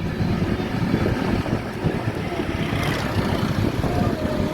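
Steady low engine rumble of road traffic, with wind buffeting the microphone.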